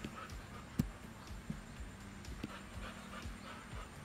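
Siberian husky moving about on a tiled floor, with faint scuffling and a sharp knock just under a second in, then a smaller knock about two and a half seconds in.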